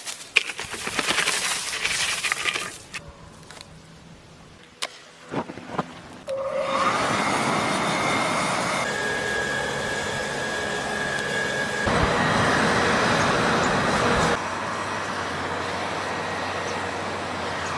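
Dry straw rustling and crackling as it is pushed by hand onto the charcoal in a clay trough forge. From about six seconds, a steady rush of forced air from a blower feeding the charcoal fire, with a faint high whine in the middle and the level stepping up and down twice.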